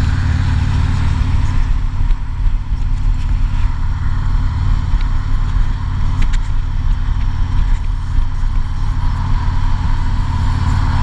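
Harley-Davidson touring motorcycle's V-twin engine running steadily at highway cruising speed, with wind noise from the open-air ride.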